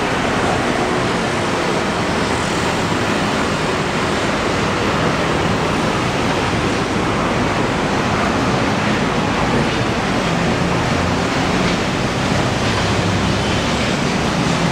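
Steady city street traffic noise, an even wash of sound with no single event standing out.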